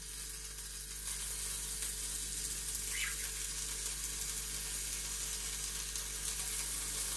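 Chopped bacon sizzling in oil on the hot plate of an electric raclette grill, a steady hiss that gets a little louder about a second in.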